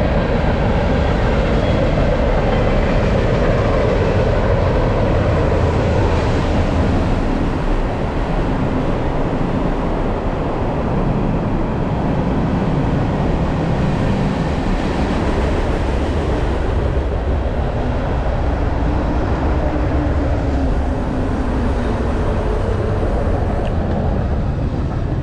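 Steady, loud rumbling wind noise on the microphone of a moving bicycle, mixed with tyre and riding noise.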